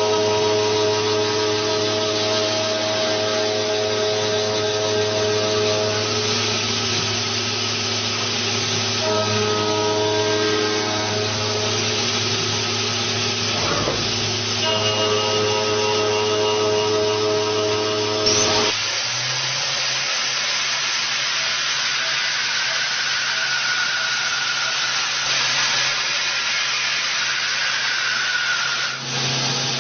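CNC machine running while machining a gear: a steady mechanical whir over a hiss, with its tones changing abruptly about two-thirds of the way through.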